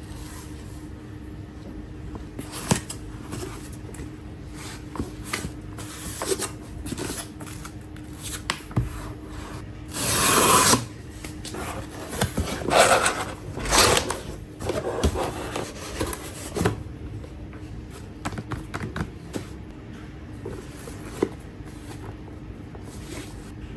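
An iPad box and its packaging being handled and opened, with intermittent rubbing, scraping and rustling of cardboard and paper. The loudest is a longer sliding scrape about ten seconds in, followed by a few more scrapes shortly after.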